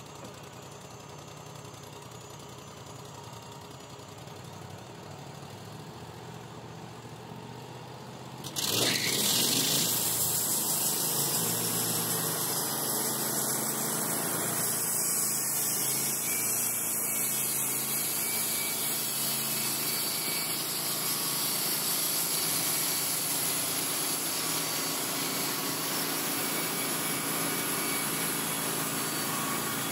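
Wood-Mizer LT35 HD sawmill engine idling, then about eight and a half seconds in a sudden jump to a loud, steady hiss of the band blade running and sawing through a log as the head travels along it, with the engine under load.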